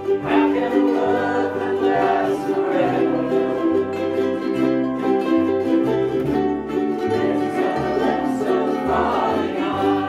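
A large group of ukuleles strumming chords together while many voices sing in unison, over a low bass line that moves in steps.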